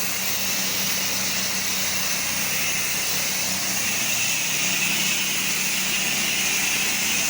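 Pressure washer engine running steadily with a constant high hiss over a low, even hum.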